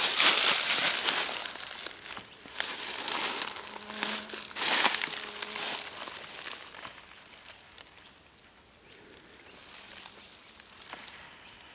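Dry leaves and tinder rustling and crackling as they are handled at the base of a Swedish torch of bundled split sticks while it is lit. The noise is loudest in the first couple of seconds, flares again around four to five seconds, then dies down.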